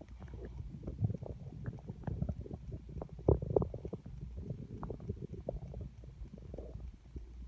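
A human stomach gurgling and rumbling from hunger: a run of small bubbling pops and squelches on an empty stomach, with a louder gurgle about three seconds in.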